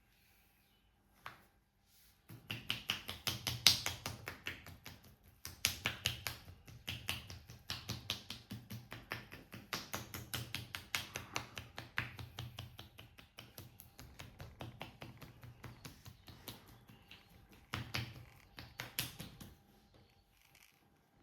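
Rapid rhythmic percussive massage strokes on a person's back: sharp slaps or taps, several a second, beginning about two seconds in and stopping shortly before the end.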